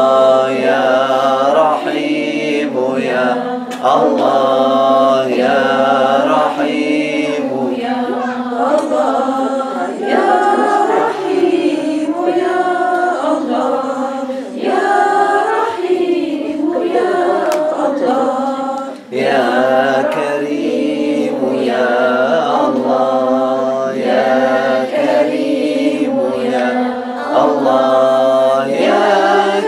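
A small group of men and women chanting dhikr together to a repeating melody, invoking the names of God such as "Yā Allāh". The chant runs on without a break except for a short dip about nineteen seconds in.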